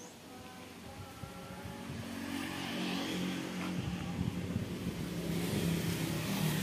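A motor vehicle engine running nearby, growing steadily louder from about two seconds in, as if it approaches and passes.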